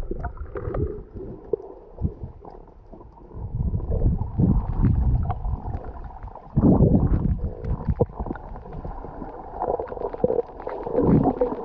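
Muffled underwater rumbling and gurgling, picked up by a camera held underwater, with scattered faint clicks and uneven surges, the loudest a little past halfway.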